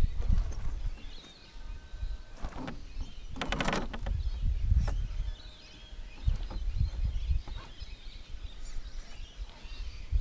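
Outdoor ambience: uneven wind rumble on the microphone with birds chirping in the background, and a short burst of rapid clicking and crackling about three and a half seconds in.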